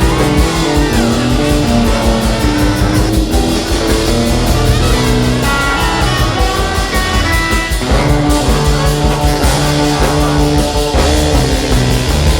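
Live ska band playing with a steady beat, electric guitar prominent over bass and drum kit.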